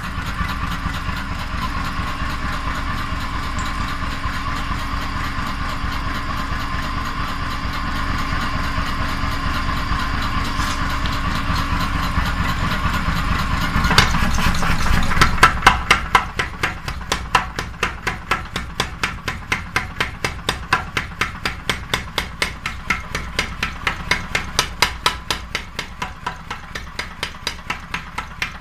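A steady mechanical running noise with very fast ticking, then, from about halfway, a hammer striking metal in an even rhythm of about three blows a second.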